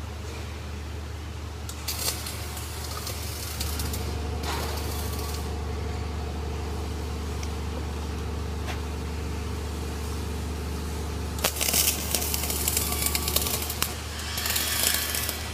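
Flux-cored arc welding arc crackling in several short bursts of a second or two each, the loudest near the end, over a steady low machinery hum.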